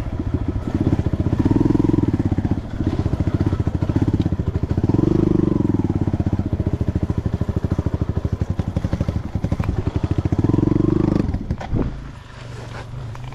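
Dirt bike engine running close by, its firing pulses speeding up and slowing down as the throttle is worked, then dropping off sharply near the end.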